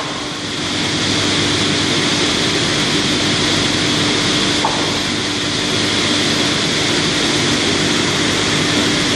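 Sawmill cutting line machinery (horizontal band saw, circular saws and conveyors) running steadily: a loud, continuous mechanical din with a constant hum. A single short knock sounds about halfway through.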